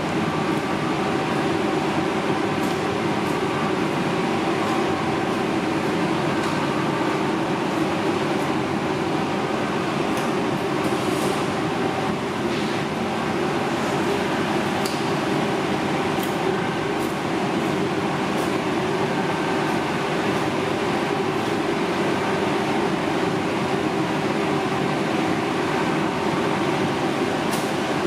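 Steady mechanical drone of ventilation machinery running, even throughout, with a few faint clicks scattered through it.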